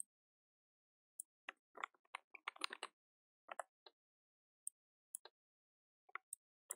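Faint keystrokes on a computer keyboard: scattered single clicks, with a quick run of them about two to three seconds in.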